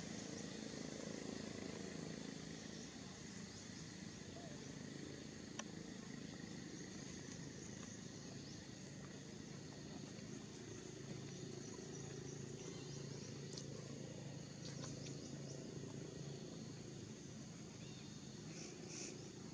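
Faint, steady outdoor ambience: a high insect buzz over a low steady hum, with one sharp click about five and a half seconds in.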